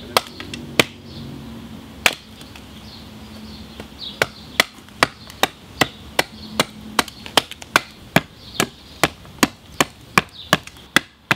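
Axe chopping into a birch club head resting on a log chopping block: a few spaced blows, then a steady run of strikes from about four seconds in, two to three a second.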